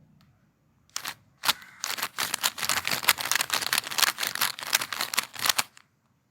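MoYu plastic speed cube being turned by hand: a couple of single clicks, then a quick run of many clicking turns for about four seconds that stops just before the end.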